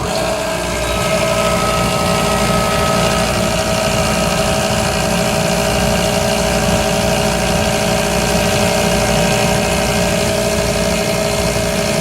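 Workshop electric air compressor switched on, its motor and pump starting abruptly and running steadily with a constant hum and whine as the tank pressure comes up. The owner suspects a problem with the check valve on the intake, as the compressor struggles to build full pressure.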